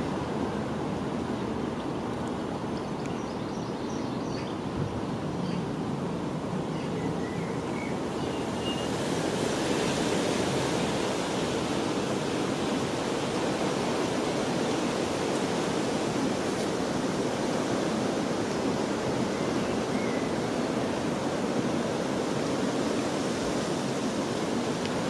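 Steady outdoor rushing noise, like wind or running water, that grows brighter and hissier about a third of the way in, with a few faint short high chirps early on.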